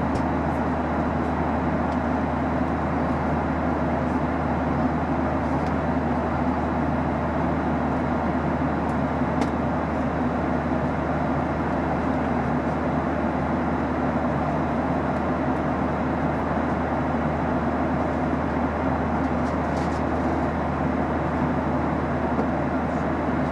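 Steady cabin noise of a Boeing 737-800 in flight, heard from inside the cabin: the CFM56-7B turbofan engines' drone and the rush of airflow, with a constant low hum underneath.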